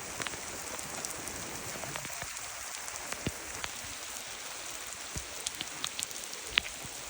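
Heavy rain pouring down: a steady hiss with scattered sharp drop ticks close by, one louder tick near the end.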